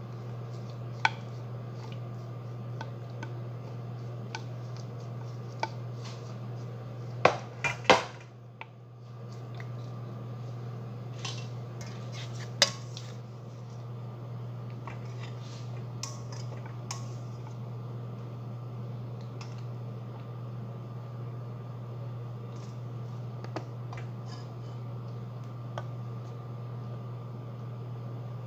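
A spoon scraping and clinking against a bowl and a glass baking dish while ground-meat sauce is spooned out, in scattered sharp clinks, the loudest a quick cluster about a quarter of the way in. A steady low hum runs underneath.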